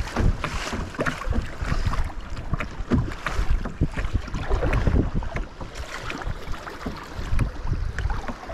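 Kayak paddle strokes splashing and river water rushing along a sit-on-top kayak's hull through choppy current, with wind buffeting the microphone in gusts.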